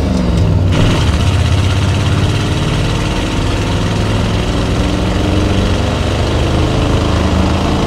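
1977 Ford F-150's 351 V8 running steadily through its dual exhaust as the truck drives along, with wind and road noise.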